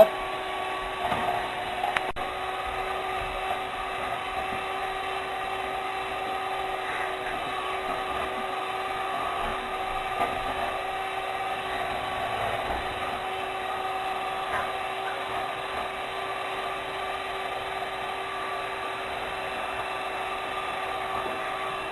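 Electric hand mixer running steadily, its motor whine holding one even pitch, beating egg batter toward stiff peaks.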